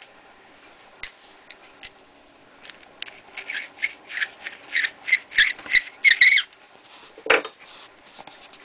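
Hand deburring tool twisted against the mouth of a trimmed brass .30-30 rifle case, cutting away the burr left by trimming. It makes a run of short, squeaky scrapes, about three a second, followed near the end by a single louder thud.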